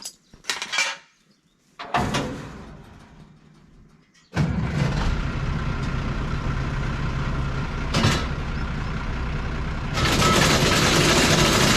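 Tractor engine starting about four seconds in and running steadily, getting louder near the end, after a knock about two seconds in.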